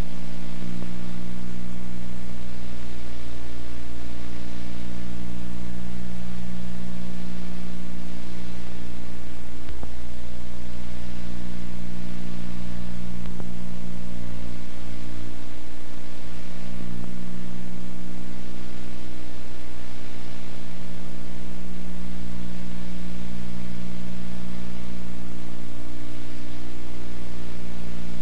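Steady electrical hum and buzz with hiss, unchanging throughout: mains hum on the soundtrack of an old videotape transfer rather than any sound from the scene.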